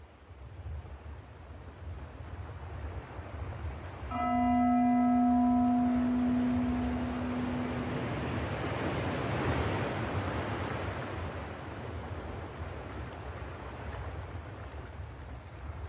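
Sea surf washing steadily, with a single deep bell struck about four seconds in that rings out and fades over roughly four seconds; the wash of the waves swells a little after the bell dies away.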